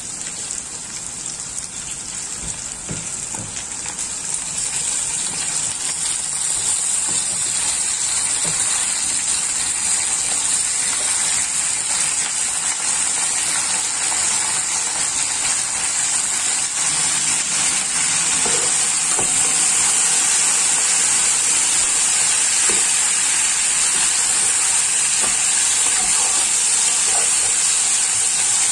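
Pieces of beef shank going into hot oil and browned onions in a large aluminium pot, frying with a steady sizzling hiss that grows louder over the first half as more meat goes in, then holds.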